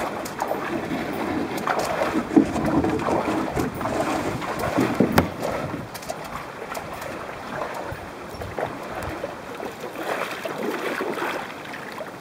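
Lake water splashing and lapping around the hull of a Hobie sailboat in the shallows, with a few brief knocks; the splashing is busier in the first half and eases off about halfway through.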